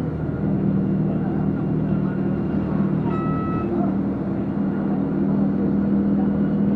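Car engine and road noise heard from inside the moving car, a steady low drone. A short high tone sounds once about three seconds in.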